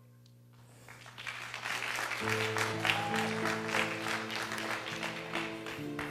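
A congregation clapping, starting about a second in, with instrumental music of held chords entering underneath about two seconds in.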